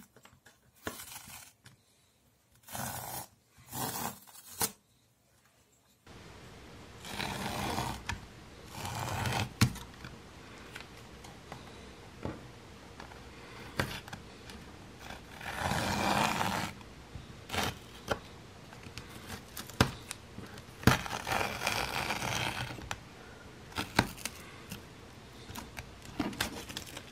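Hands handling a stretched canvas on a wooden table: fingers brushing and scraping over the canvas and its edges, with a few sharp knocks as it is tilted and set down. Short scrapes with gaps of silence at first, then from about six seconds in a faint steady hiss under repeated scraping and clicks.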